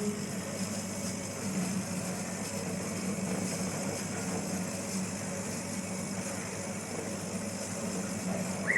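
KAMACH 1610 CO2 laser cutting machine running: a steady mechanical hum with hiss. A short rising squeak comes near the end.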